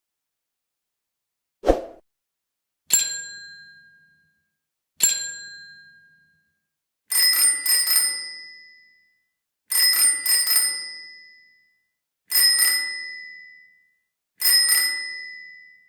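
Bicycle bell rung over and over with a short click just before the first ring. The first rings are single dings that fade slowly; later it rings in quick double dings, a little higher in pitch.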